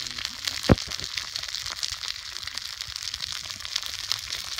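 Horumon (offal) sizzling and spattering in sauce in a small COCOPan iron frying pan, a dense, steady crackle of fine pops with one sharp pop near the start.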